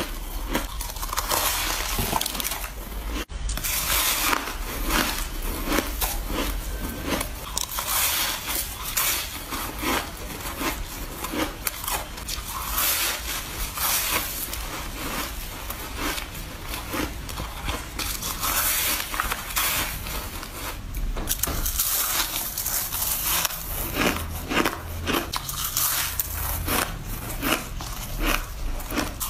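Close-up bites into powdery, snow-like frozen ice, one after another, each a squeaky, crackling crunch.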